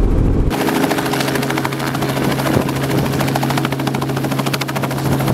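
Robinson R44 Raven II helicopter running on the ground, its main rotor turning with a fast, even chop over a steady engine drone. About half a second in, a muffled in-cabin rumble gives way abruptly to this outside sound.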